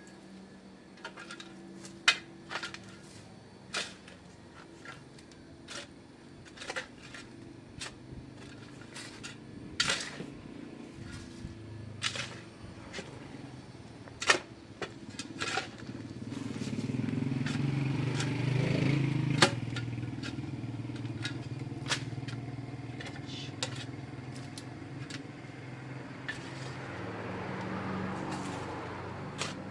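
A motor engine running with a low steady hum that grows louder about two-thirds of the way through, then eases off, with sharp knocks and clicks scattered throughout.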